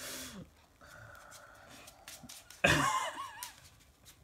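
Sleeved playing cards rustling as a stack is handled, then a short, loud non-word vocal sound from a player, cough-like with a wavering pitch, about two and a half seconds in.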